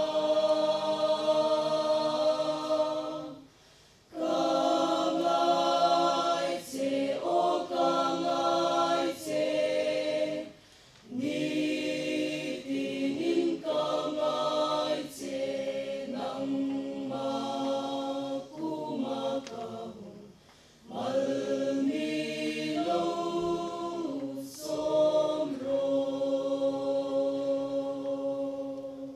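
Mixed choir of women and men singing in parts under a conductor, unaccompanied, in phrases with short breaks about 4, 11 and 20 seconds in.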